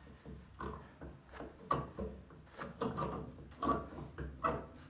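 Metal eye hook being screwed into a wooden post by turning a screwdriver through its eye: its threads bite into the wood with short creaks and clicks, about two a second.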